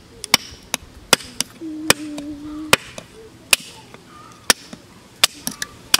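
Batoning: a wooden baton knocks on the spine of a knife, driving it through a small block of wood to split off thin strips. About a dozen sharp wooden knocks come at an uneven pace, several close together near the end.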